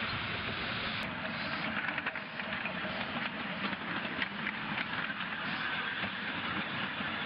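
Live steam miniature locomotive blowing a steady hiss of steam from its cylinder cocks. About a second in, this gives way to the train's cars running on the track, with quick irregular clicks and rattles over a steady hiss.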